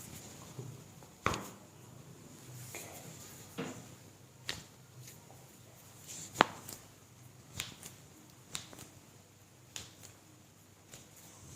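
Joints being manipulated by a chiropractor, giving a series of sharp cracks and clicks, about ten spread out, the loudest a little past halfway.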